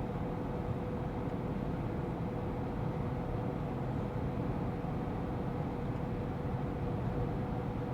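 GAZ Sobol 2752 van driving at a steady speed on the highway, heard from inside the cabin: constant road and engine noise with a steady faint hum.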